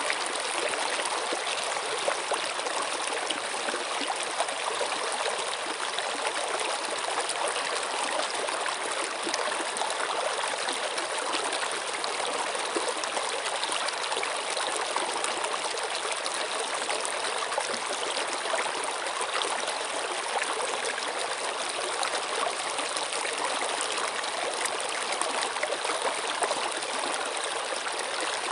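Flowing stream: steady rushing and trickling water, with small splashes flickering through it.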